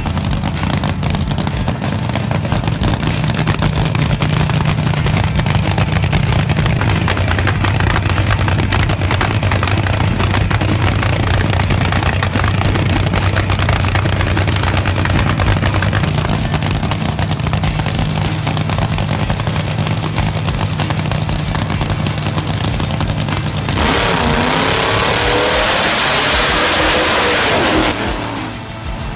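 Nitro-burning drag racing engines idling loudly with a rapid, lumpy firing. About 24 seconds in they rev hard, the pitch rising and falling over a loud hiss, until it cuts back near the end.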